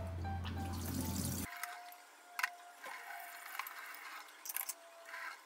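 Tap water running and splashing into a stainless steel sink during hand dishwashing, with several light clinks of crockery.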